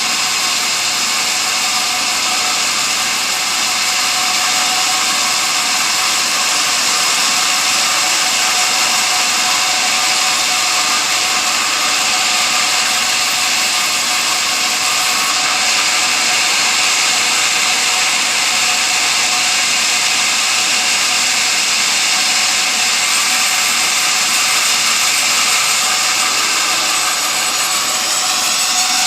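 Sawmill saw running with a steady, loud high whine as it cuts teak timber.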